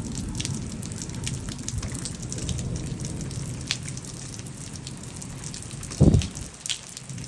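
Rain and hail falling, a steady hiss with scattered sharp ticks of hailstones striking, and one low thump about six seconds in.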